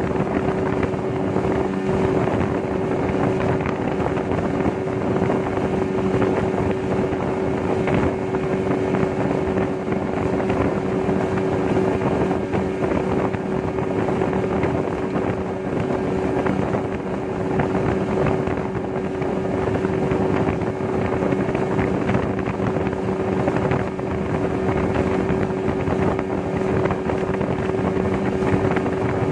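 Yamaha Enduro 15 hp two-stroke outboard motor running at a steady speed, its pitch and level unchanging throughout.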